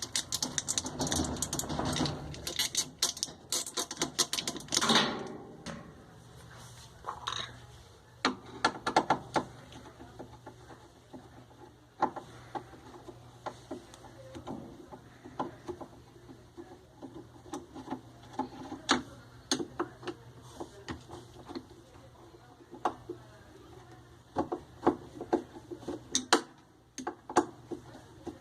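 Irregular clicks, knocks and rattles of hand tools and metal and plastic parts being handled while a washing machine is taken apart, denser with scraping for the first few seconds, then scattered taps over a faint steady hum.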